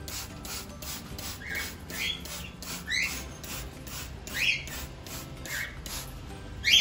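Blue-headed parrot giving several short, rising-and-falling chirping calls over a rapid, even hiss of a hand spray bottle squirting water, about four squirts a second.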